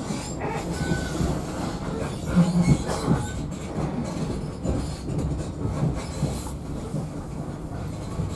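Wheels of a Class 43 HST coach clattering over points and rail joints at low speed, heard inside the passenger saloon as a low rumble with irregular knocks, loudest about two and a half to three seconds in. A couple of short high wheel squeals come through near the start and around the loudest knocks.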